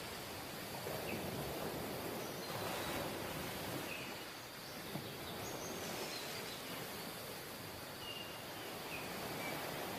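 Sea surf breaking and washing up a sandy beach: a steady rushing wash that swells and eases slowly, with a few faint short high chirps now and then.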